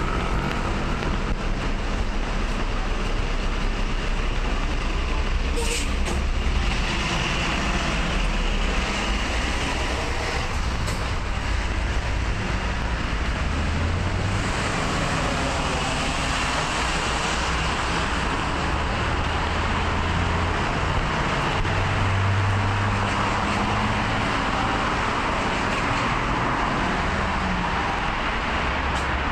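Road traffic on a multi-lane city street: a steady rush of cars and a city bus, swelling now and then as vehicles pass.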